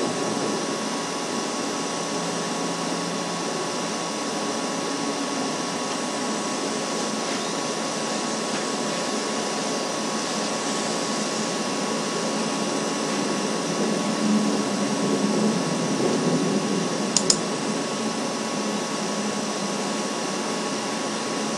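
Steady rushing noise from a bald eagle nest-cam microphone, with a faint steady hum tone. Soft rustling from the adult bald eagle moving in the nest is heard around the middle, then a sharp click about seventeen seconds in.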